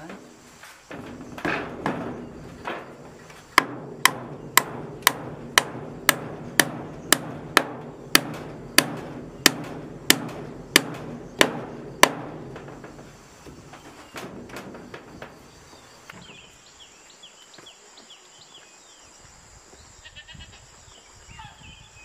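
Hammer striking a wooden brace on a timber roof post: a steady run of sharp blows, about two a second, that stops about twelve seconds in.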